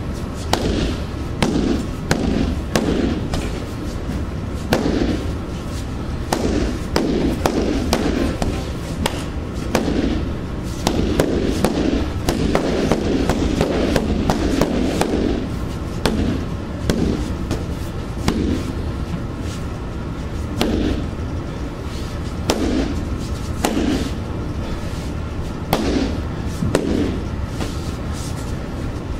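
Wooden stick and hand strikes landing on a freestanding heavy bag: irregular sharp smacks and dull thuds, packed into a fast flurry about halfway through.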